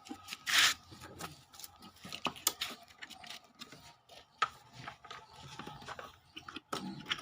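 Plastic parts of a vacuum cleaner being handled during disassembly: irregular scraping, rubbing and clicking, loudest in a scrape under a second in.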